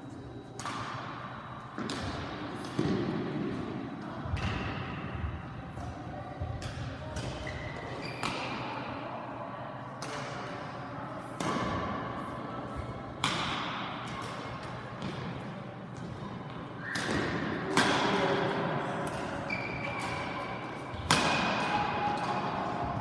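Badminton rackets striking a shuttlecock during rallies, sharp smacks every second or two that echo around a large sports hall, with a few short high squeaks between them.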